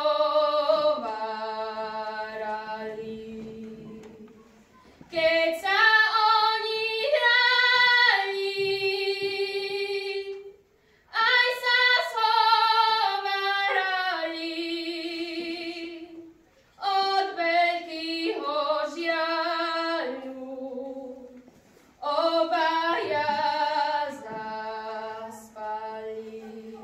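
A girl singing a Slovak folk song solo, in about five long phrases with short breaks between them. Nothing sounds in the breaks, so the singing is unaccompanied.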